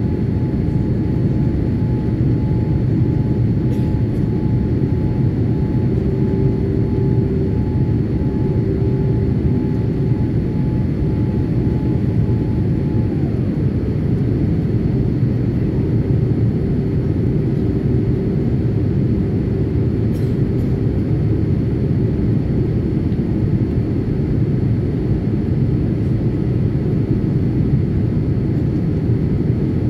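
Steady cabin noise of a Boeing 787 Dreamliner during descent: a deep rumble of engines and airflow heard from inside the cabin. A faint whine sits over it and slides lower, then fades, about thirteen seconds in.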